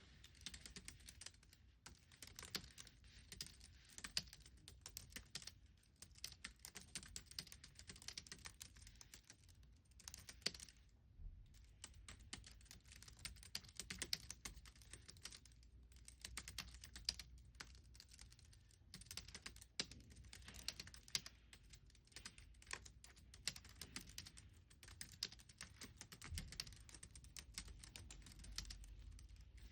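Computer keyboard being typed on: quick, continuous runs of keystrokes with a few short pauses.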